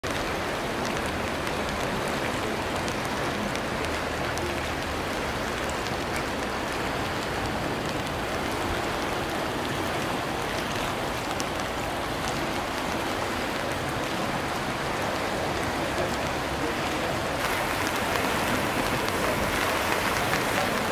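The Geul river in flood, its swollen brown water rushing and churning past as a steady noise. About three-quarters of the way through the rushing becomes louder and brighter.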